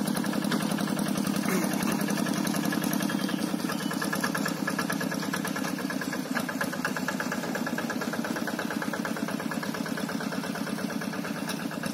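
Two-wheel hand tractor's engine running steadily as it plows a flooded rice paddy, with a fast, even pulsing beat.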